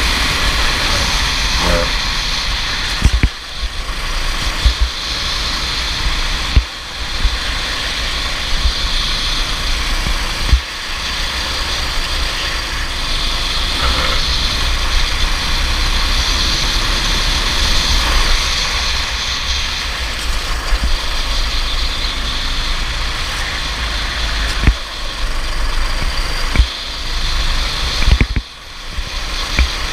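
Racing kart at speed: its small engine running under load, with heavy wind rumble on the microphone. A few sharp knocks with brief drops in level punctuate it.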